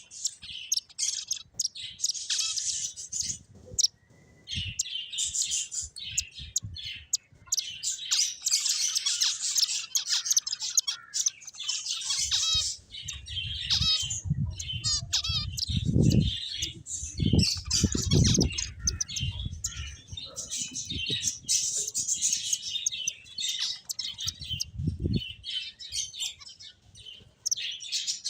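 Several finches chirping, a busy stream of short high chirps and calls overlapping one another with only brief pauses. A few low bumps can be heard in the middle and again near the end.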